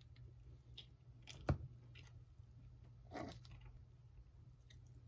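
A metal fork cutting into a slice of cake on a ceramic plate: one sharp knock against the plate about one and a half seconds in, and a softer scrape a little after three seconds.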